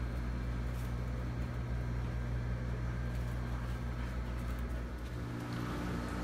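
Steady low mechanical hum of machinery running, with a second, slightly higher hum joining about five seconds in.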